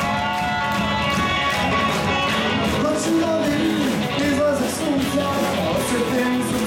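A rock band playing live: guitars over drums and cymbals, with a voice singing.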